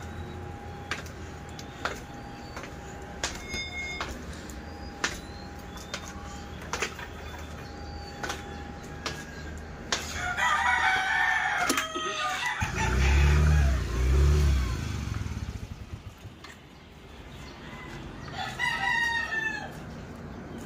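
Roosters crowing, once about ten seconds in and again near the end, with clucking between. Sharp footstep-like taps come every second or so over the first seven seconds, and a loud low rumble swells twice just after the first crow.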